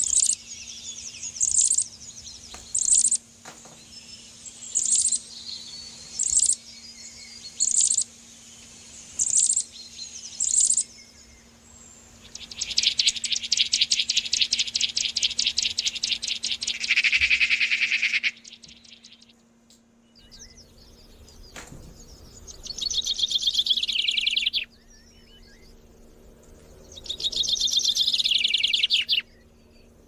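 Songbird song: a series of sharp, high chirps about one every second and a half, then rapid trills. There are three trills, the first long one dropping lower at its end.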